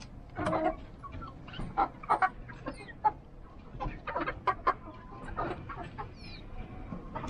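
A mixed flock of chickens clucking and calling in many short, irregular notes, several birds overlapping, with a few brief high chirps among them.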